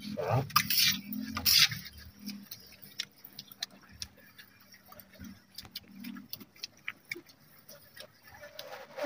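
Spoons clinking and scraping on plates while people eat, irregular light clicks, with a louder clatter in the first two seconds.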